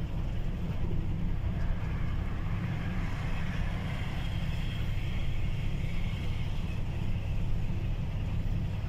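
A truck's engine and road noise heard from inside the cab while driving at a steady pace. It is a constant low rumble with an even hiss of tyres and wind above it.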